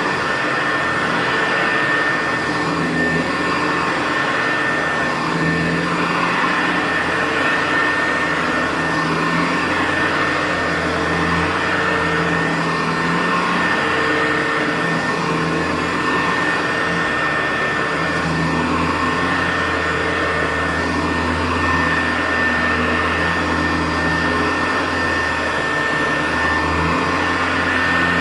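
Hoover U4007 upright vacuum cleaner running steadily while vacuuming carpet, with a constant high whine over a low hum that swells and fades every few seconds.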